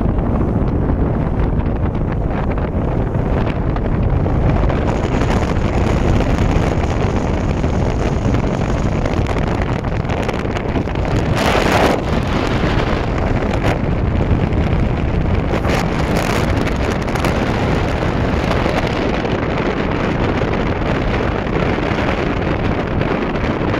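Wind buffeting the microphone aboard a moving cruise boat, over the steady rush of the boat's engine and water. A brief louder whoosh comes about halfway through.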